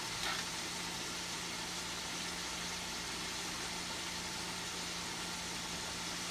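Steady background hiss with a faint low hum underneath, unchanging throughout.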